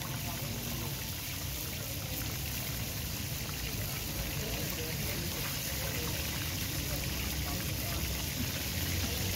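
Chicken leg pieces deep-frying in a wide, shallow pan of hot oil: a steady sizzle and bubbling.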